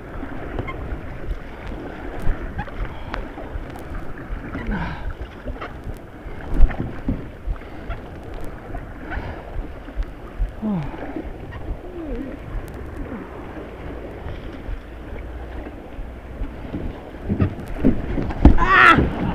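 White-water river rushing and splashing around a kayak, with water washing over the camera. There is a sharp knock about six seconds in, and a short shout near the end.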